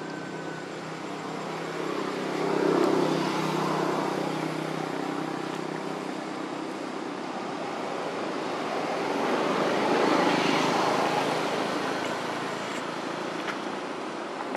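Road traffic passing at a distance, a steady rush that swells and fades twice as vehicles go by, about two to four seconds in and again around ten seconds in.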